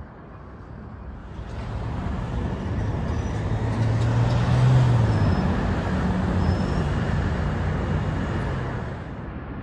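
A motor vehicle driving past close by. Its engine drone and road noise build up, are loudest about halfway through, then fade away.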